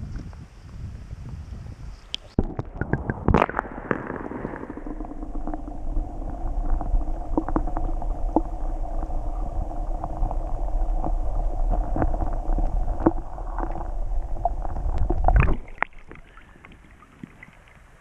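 Muffled underwater rumbling and gurgling, with many scattered knocks, heard through a GoPro held under the surface of a shallow rocky creek. It starts about two seconds in and drops away shortly before the end.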